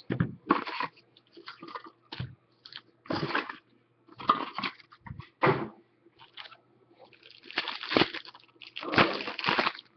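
Trading-card packs and cards being handled: irregular crinkling and rustling in short bursts, the longest two near the end.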